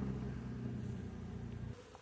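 Honeybees buzzing close by: a steady low hum that cuts off abruptly near the end.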